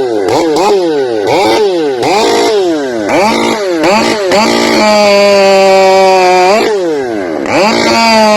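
Two-stroke chainsaw revved up and down repeatedly, then held at full throttle for about two seconds as it cuts, its pitch sagging slightly under load. It drops back, blips, and goes back to full throttle for a second cut near the end.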